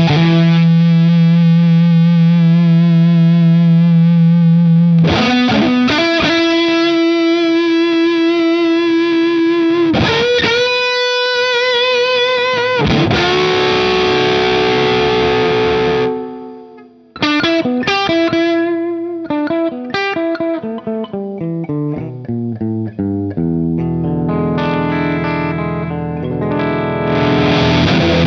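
Electric guitar played through an EarthQuaker Devices Acapulco Gold distortion pedal: distorted long held notes, some with vibrato, then after a brief break about two-thirds through, a quicker run of notes leading into a repeating riff near the end.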